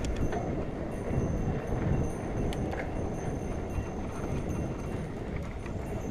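Mountain bike rolling fast on a dirt trail: a steady low rumble of tyres and wind on the helmet camera's microphone, with scattered clicks and knocks of the bike rattling over bumps.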